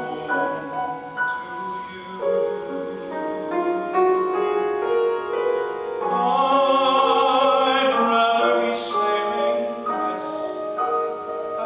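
Male voice singing a slow musical-theatre ballad over piano accompaniment, the sung line swelling to a long note with vibrato about halfway through.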